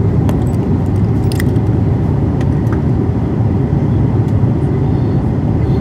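Steady low roar of an Airbus A330-200's engines and airflow heard inside the passenger cabin in flight, with a few faint clicks.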